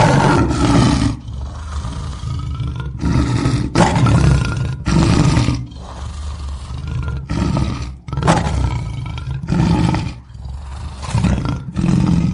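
A lion roaring: one long roar at the start, then a string of shorter roars about a second or so apart, deep and loud.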